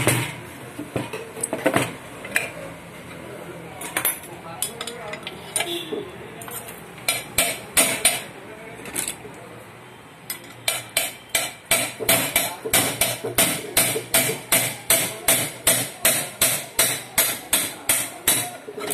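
Steel hand tools clinking and knocking against a cast-iron sewing machine head. About halfway through this becomes a steady run of sharp metal taps, about three a second.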